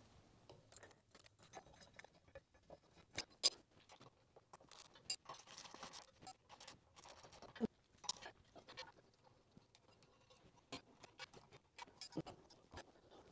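Faint, scattered clicks, taps and handling noises from hands taking down an old ceiling fan: the glass light bowl and the blade screws. A few sharper knocks stand out, about three and a half seconds in, near eight seconds, and near the end.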